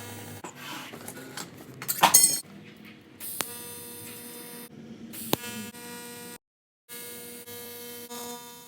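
A steady electrical buzz with several overtones, cut off abruptly a few times by audio dropouts. A few sharp clicks and a brief loud crackling burst about two seconds in.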